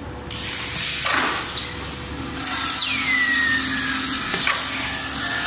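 Automatic melamine tray polishing machine running: a steady hiss of grinding and rubbing, joined about two seconds in by a low steady hum. About halfway through there is a falling whine, and near the end a couple of short knocks from the moving fixtures.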